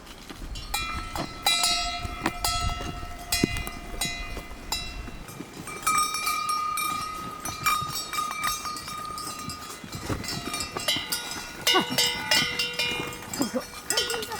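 Cowbells on cattle clanking irregularly as the cows move, several bells of different pitch ringing on after each strike.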